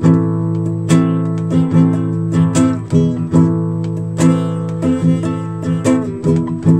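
Nylon-string classical guitar strummed in a steady rhythm of ringing chords, with no singing.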